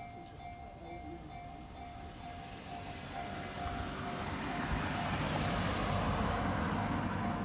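Japanese level-crossing warning bell ringing in a steady repeating beat while a Yamanote Line electric train approaches. From about three seconds in the train's rumble swells, and it is loudest as the train passes near the end.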